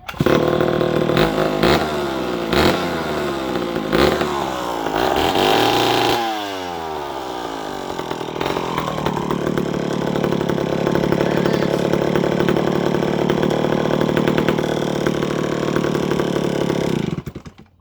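Two-stroke chainsaw engine running: it comes in suddenly, is blipped several times and revved high before the revs fall away, then runs steadily for about nine seconds before it cuts off near the end.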